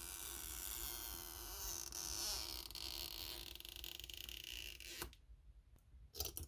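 An iPhone XS Max battery's stretch-release adhesive strip being pulled out slowly with tweezers, creaking as it stretches. It comes free with a sharp snap about five seconds in, followed by a few light clicks of tweezers on the phone's board.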